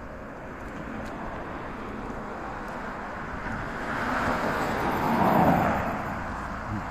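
A road vehicle passing close by, its tyre and engine noise swelling to a peak about five seconds in and then falling away, its pitch dropping as it goes.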